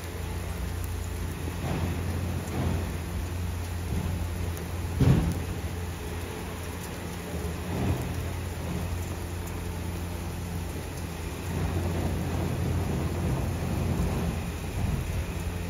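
Low, steady rumble of an approaching Metro-North M8 electric multiple-unit commuter train, with rain noise over it. A sharp thump about five seconds in is the loudest moment.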